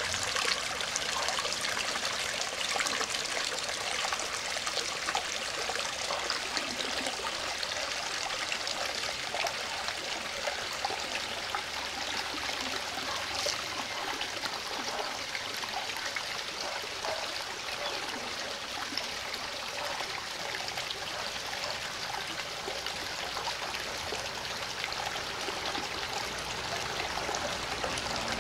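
Water of a small rocky creek trickling and running over rocks, a steady even rush.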